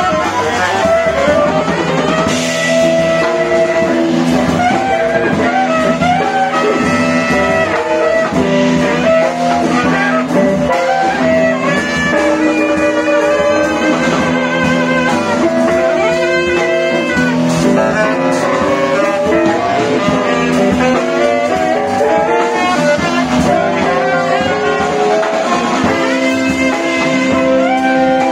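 Live jazz quartet: saxophone playing a moving melodic line over double bass, drum kit and guitar.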